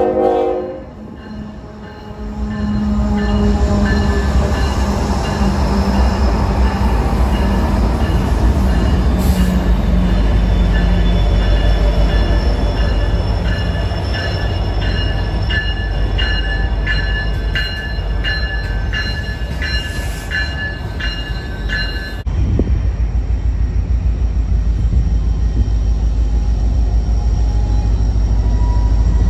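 Freight train noise: a diesel locomotive's air horn ends in the first half second, then a long freight train rolls past with high steady wheel squeal and a regular run of clicks from wheels over the rail. About 22 s in it changes abruptly to the low, steady rumble of a diesel switcher locomotive pulling a few cars.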